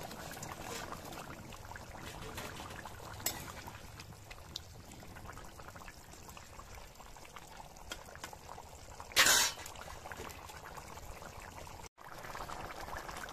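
Curry bubbling at a rolling boil in a steel pot, with fried fish pieces slid in from a steel bowl and stirred in with a spoon. A brief, louder burst of noise comes about nine seconds in.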